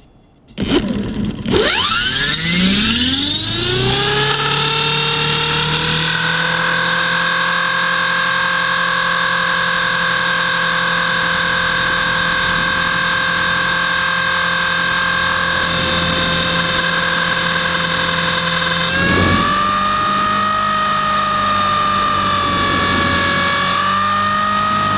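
A 450-size RC helicopter's electric motor and main rotor spool up with a rising whine over the first few seconds, then hold a steady whine and blade hum in flight. About 19 seconds in, the pitch steps up slightly. It is heard close up from a camera mounted on the helicopter itself.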